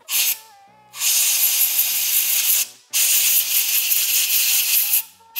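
Compressed-air blow gun blasting air into a parking-sensor electrical plug to blow it clean and dry: a short burst, then two long hissing blasts of about one and a half and two seconds.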